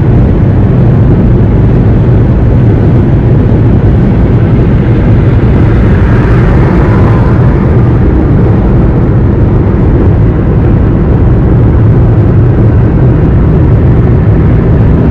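Loud, steady low rumble of road and engine noise inside a moving car's cabin on a highway, with a faint higher hiss swelling briefly about six seconds in.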